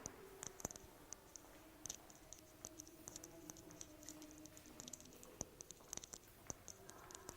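Near silence: room tone with many faint, short, high-pitched clicks scattered irregularly throughout, over a faint low hum.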